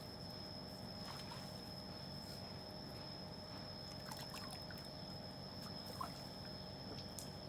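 Faint pond-side ambience: a steady background hum and a thin high steady tone, with a few soft water trickles and small splashes about a second in, around four seconds and around six seconds.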